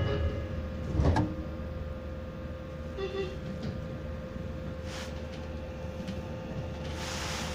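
Inside a Meitetsu 3150 series train car standing at the station, the sliding doors close with a thump about a second in. A steady hum follows, and a hiss starts near the end.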